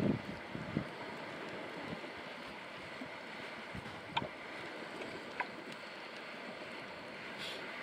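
Steady wind and sea-shore noise, with a couple of sharp knife taps on a wooden chopping board as a lemon is sliced, about four and five seconds in.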